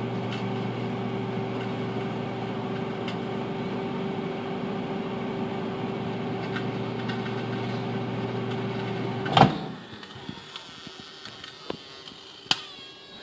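Microwave oven running with a steady hum, which stops about nine seconds in with a loud sharp click. A few small clicks and one more sharp click follow in the quiet after it.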